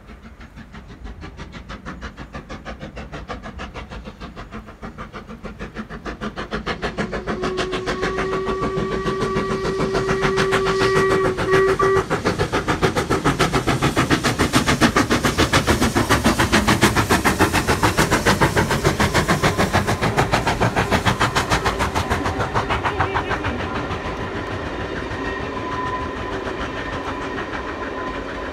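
Steam locomotive working hard with rapid, rhythmic chuffing that grows louder as it approaches. About eight seconds in it gives a long whistle blast and ends it with a short toot. Toward the end the carriages roll past and the chuffing eases a little.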